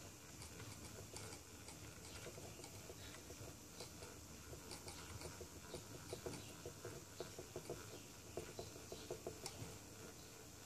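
Motorized display turntable running with a low hum and faint, irregular ticking and clicking, the clicks coming thicker in the second half.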